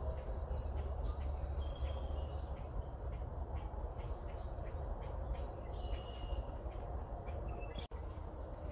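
Outdoor ambience: birds chirping and giving short calls in the background, over a steady low rumble of wind on the microphone. The sound drops out for an instant near the end.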